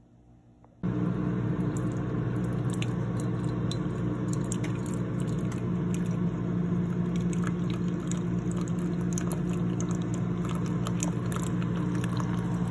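Coffee maker brewing into a mug: a steady pump hum with many small crackles and sputters from the water. It starts suddenly about a second in.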